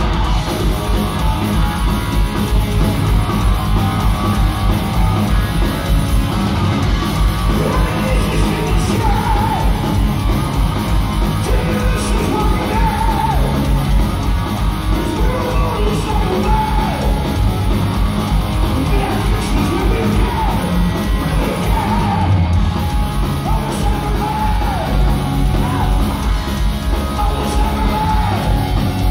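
Heavy metal band playing live, heard from the audience in a large hall: distorted electric guitars over fast, driving drums, with a high male lead vocal singing from about eight seconds in.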